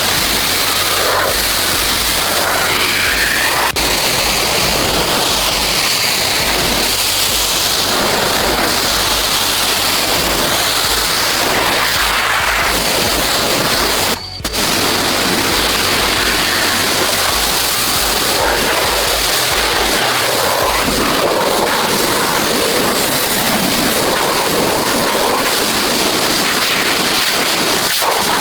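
Loud, steady rushing noise with a brief break about fourteen seconds in.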